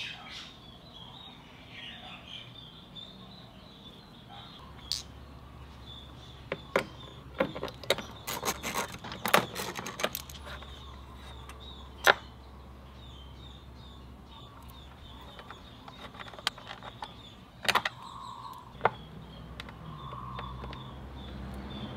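Small metal parts clinking and clicking as they are handled: a nut and washer, bolts and a 10 mm socket on the scooter's rear swingarm. The clicks come in scattered bursts, with a quick run of them in the middle and one sharp clink a little after.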